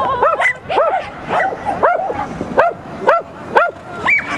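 A pumi barking over and over in short, sharp yaps, about two a second.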